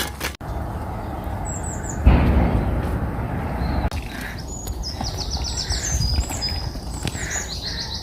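A low rumbling noise, strongest about two seconds in, then a small bird singing quick, high, repeated chirping phrases from about halfway on.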